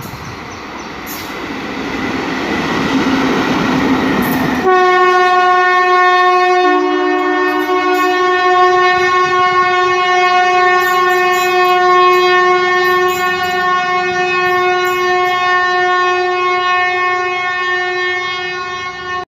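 Indian Railways WAP-4 electric locomotive running light, its rumble and rush growing louder as it nears and passes. About five seconds in, the train noise cuts off sharply and a loud, steady locomotive horn blast takes over, held for about fourteen seconds.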